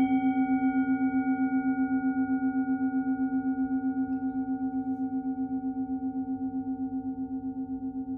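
Singing bowl ringing after a single strike: a steady low tone with several higher overtones, wavering quickly and regularly as it slowly fades.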